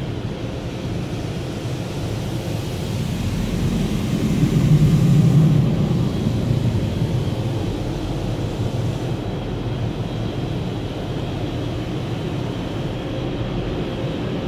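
Automatic soft-touch car wash heard from inside a minivan's cabin: a steady rumble of the wash equipment, with water spray and cloth strips washing over the windshield. It swells louder about four to six seconds in.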